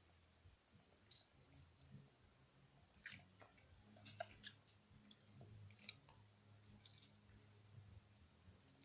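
Near silence: room tone with a faint low hum and a few faint, scattered clicks.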